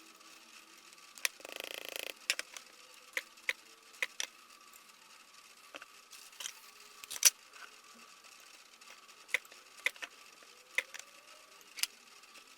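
Scattered sharp clicks and taps of small parts and tools being handled at a workbench, about a dozen in all, the loudest about seven seconds in. A short scraping rustle comes about a second and a half in.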